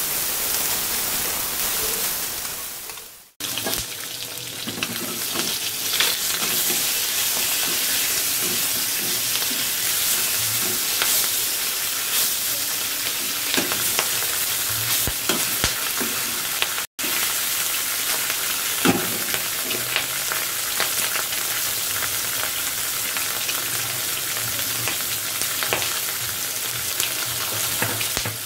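Rohu fish pieces frying in hot mustard oil in a kadai: a steady sizzle with scattered clicks and scrapes as the pieces are turned with a metal utensil. The sizzle cuts off briefly twice.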